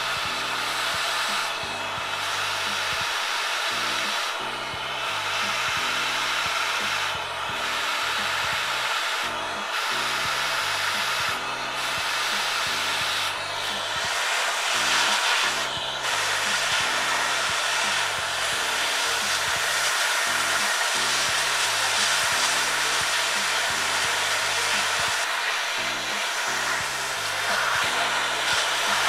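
Vacuum cleaner on low power sucking dust out of a laptop's cooling fan and heatsink: a steady rushing hiss whose high end dips briefly about every two seconds as the nozzle is moved.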